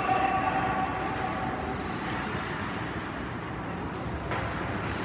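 Steady noise of an ice hockey rink during play, with faint voices in the background and a small click about four seconds in.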